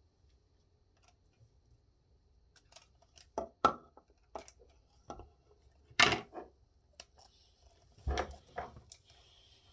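Hard plastic clicks and knocks from an Oral-B electric toothbrush handle being handled, a string of sharp taps with the loudest about six seconds in. A faint rustle follows near the end.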